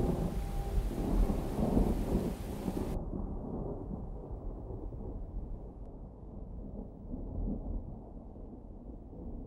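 Thunderstorm ambience: steady rain with low rolling thunder. The rain's hiss cuts off suddenly about three seconds in, leaving a low rumble that slowly fades.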